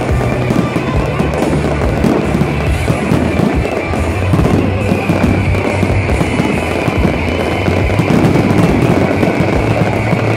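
Fireworks display: a dense, continuous run of crackling and bangs from many shells and fountains going off at once, with music playing under it.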